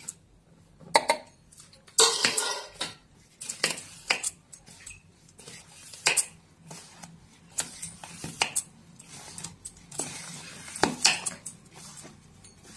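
A hand mixing flour into a wet egg, oil and sugar mixture in a plastic bowl: irregular clicks and knocks of fingers against the bowl with short scraping rustles of the flour.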